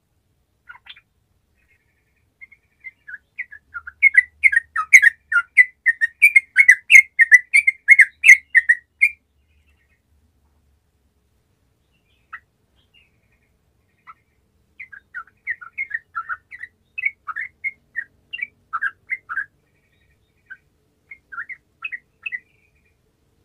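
Yellow-vented bulbul (trucukan) singing: a dense run of quick, bubbling chirped notes for about five seconds, then after a pause looser, quieter phrases of the same song.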